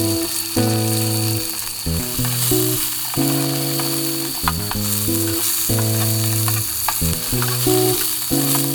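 Food sizzling and frying in a pan, with small crackles throughout, under background music of sustained chords that change every second or so.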